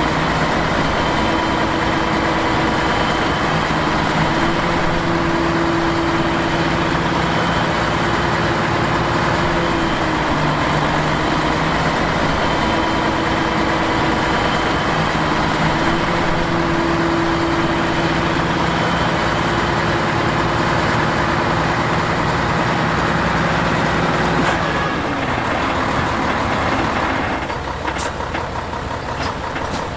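Heavy earthmoving machine's diesel engine running steadily, its note dipping and recovering a few times. About 25 seconds in it drops away and thins out, with a couple of sharp clicks near the end.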